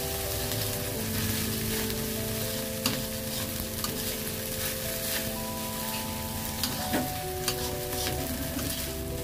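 Fried rice sizzling in a hot metal wok while a metal spatula stirs and scrapes it, with a few sharp clicks of the spatula against the wok.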